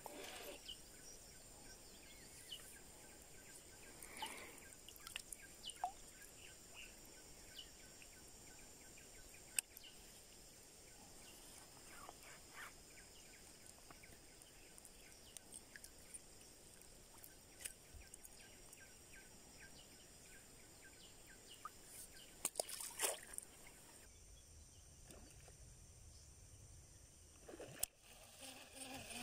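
Quiet riverside ambience: a faint steady hiss with a high steady drone, and scattered short clicks and chirps.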